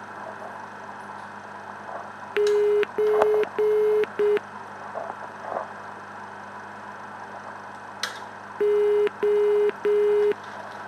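Electronic variometer tone from the VSpeak voice output beeping at one steady pitch. A group of three beeps and a shorter fourth comes about two seconds in, then three more near the end, as the UniLog2's vario reading shows a slight climb.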